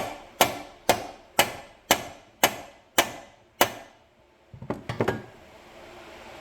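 Hammer striking a nut threaded onto a seized brake part, eight sharp ringing metal blows about two a second, to drive the part loose while the nut protects the threads. A few softer clatters follow near the end.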